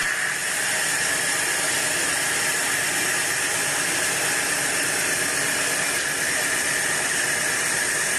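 Sawmill bandsaw cutting a teak log: a steady hiss with a whining tone in it, level and unchanging.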